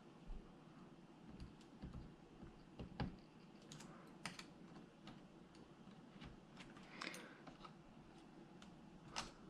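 Faint, scattered clicks and taps of small parts being handled inside an opened laptop while a replacement CMOS battery is fitted in place. The loudest tap comes about three seconds in.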